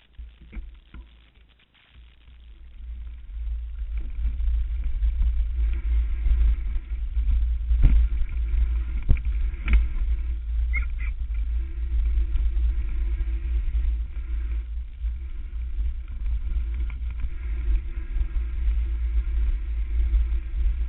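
Mountain bike descending a dirt forest trail at speed: wind buffeting the microphone and tyre rumble make a heavy low rumble that builds over the first few seconds as the bike picks up speed. A few sharp knocks and rattles come from the bike hitting bumps, the loudest about eight and ten seconds in.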